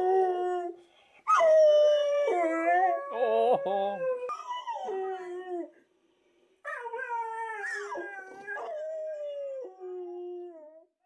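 Black Labrador howling and whining, a series of long wavering calls that slide up and down in pitch, with short breaks between them.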